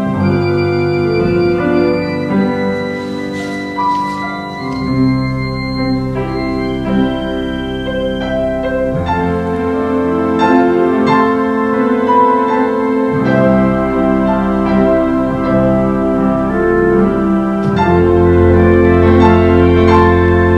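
Organ playing a carol in slow, held chords over a low bass line, the chords changing every second or two.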